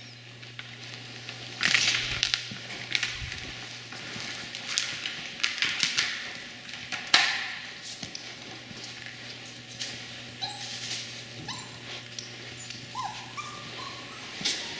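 Seven-week-old puppies whining and yipping: short high whines come in the second half, among a few sharp noisy bursts, the loudest about seven seconds in.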